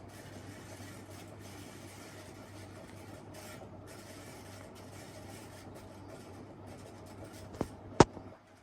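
Casablanca Delta ceiling fan running in reverse with a steady low hum and a rough running noise from its bad bearings. Near the end come two sharp clicks half a second apart, the second much louder.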